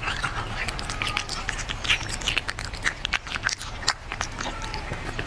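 Cat eating, with quick irregular crunching and smacking chewing sounds.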